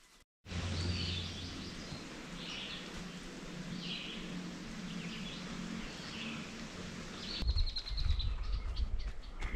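Woodland ambience: a bird repeats a short chirping call about every second and a half over a steady hiss and low hum. Near the end the sound changes to footsteps on the forest trail, with a high steady trill behind them.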